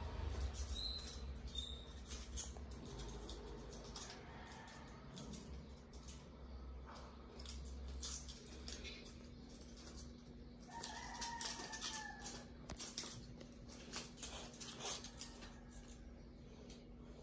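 Faint rustling and light taps and clicks as a kitten bats and paws at a toy dangled over it, with a steady low hum underneath.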